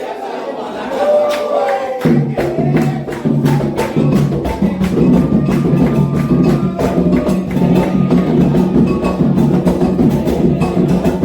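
Candomblé ritual percussion: atabaque hand drums with a struck bell come in about two seconds in and play a fast, steady rhythm under singing voices.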